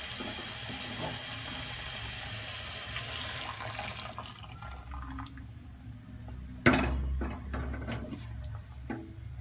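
Boiling water poured into hot frying masala in a clay pot, hissing and splashing for about four seconds before fading. A single sharp knock about seven seconds in.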